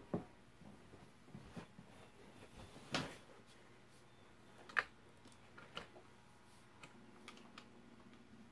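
A quiet room with a handful of scattered light knocks and clicks, the sharpest about three and about five seconds in.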